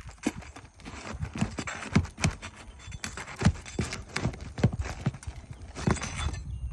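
Irregular knocks and taps on a shingle roof during shingle removal work, a few sharper strikes among lighter ones, with scraping in between.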